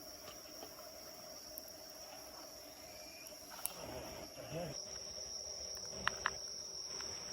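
Crickets chirping steadily in a high, continuous trill. A short wavering voice-like sound comes about four seconds in, and two sharp clicks follow a couple of seconds later.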